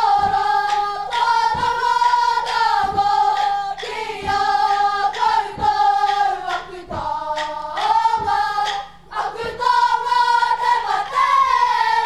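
A school kapa haka group singing a Māori action song in unison, many young voices holding long notes, over acoustic guitar with a sharp beat about every second and a half.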